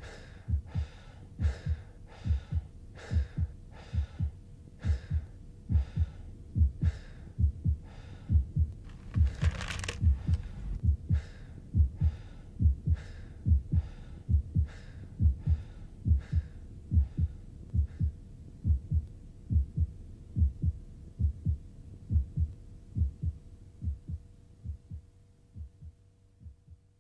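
Heartbeat sound effect: regular low thumps over a faint steady hum, with a brief rushing swell about ten seconds in. The beats fade away near the end.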